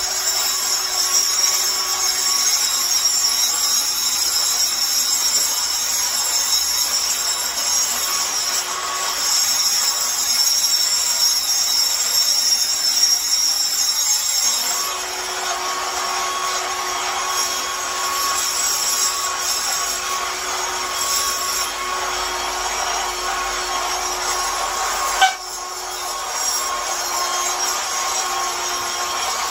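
Hand-held electric angle grinder with a red abrasive disc running steadily against a concrete floor, scouring off old carpet-glue residue. The motor's pitch shifts about halfway through, and there is one sharp knock late on.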